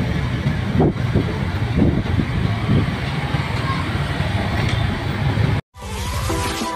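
Engine and road noise of a ride through a busy street, with other traffic around, cutting off abruptly about five and a half seconds in. After a brief gap, electronic outro music starts near the end.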